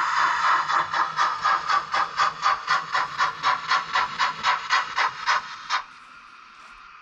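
Sound decoder of a Märklin H0 BR 56.2-8 model steam locomotive, through its small built-in loudspeaker: a steady steam hiss that turns, about a second in, into even exhaust chuffs at about four a second as the locomotive moves off. The chuffing cuts off suddenly near the end.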